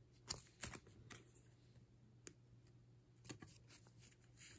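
Faint handling noises of a small plush toy and its tag: a few soft clicks and rustles, spaced irregularly.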